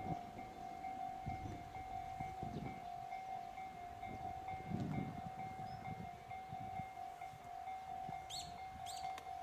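Railway level-crossing alarm ringing with a steady repeating electronic tone, the warning that a train is approaching. Wind gusts buffet the microphone, and two short rising bird chirps come near the end.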